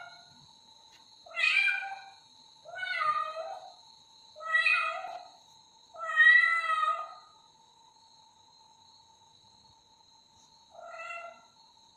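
Young kitten meowing repeatedly to be let out: four meows in quick succession, the fourth the longest and loudest, then a pause and a shorter fifth meow near the end.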